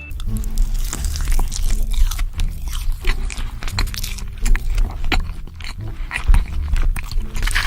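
A person eating close to the microphone, biting and chewing food, with many irregular crunches and clicks.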